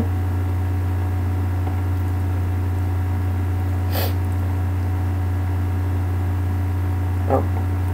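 A steady low hum, with one short noise about four seconds in.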